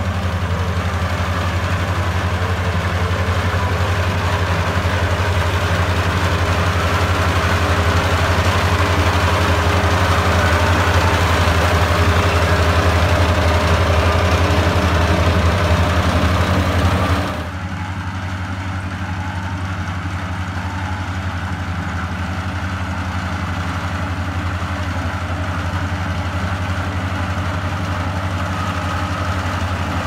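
Kubota SR40 combine harvester running under load while cutting rice: a steady engine drone with a busy mechanical noise above it. About seventeen seconds in, the sound abruptly becomes quieter and duller.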